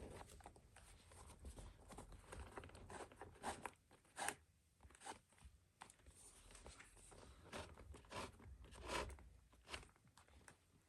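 Faint, scattered scrapes and rubbing of leather: a leather lace being pulled through the lace holes of a baseball glove as it is unlaced. The sharpest scrape comes about four seconds in.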